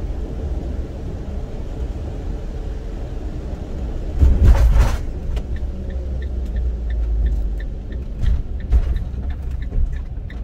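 Steady low engine and road rumble of a van driving on a wet road, heard from inside the cab. A brief louder rush of noise about four seconds in, and a quiet regular ticking about three times a second from about six seconds in.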